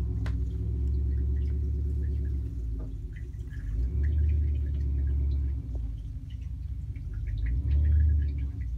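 A vehicle engine running at low speed, swelling under load about four seconds in and again near the end, as it pulls a boat trailer out.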